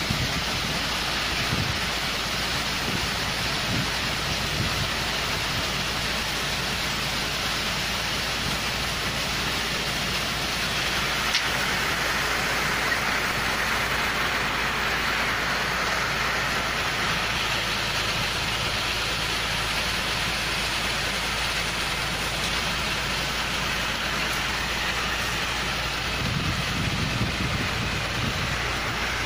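New Holland 8060 combine harvester running, its engine and machinery giving a steady drone under a constant hissing rush, with no change in pace.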